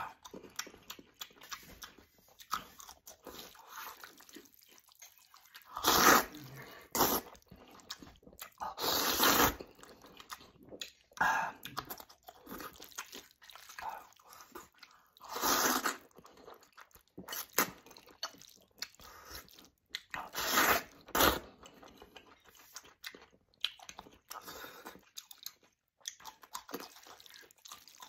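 A man eating thick noodles in bean sauce close to the microphone: several loud slurps spread through the stretch, with wet chewing and crunching between them.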